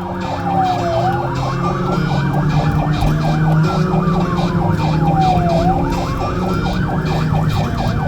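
Police sirens sounding together: one in a slow wail, rising and falling about every two and a half seconds, and another in a rapid yelp.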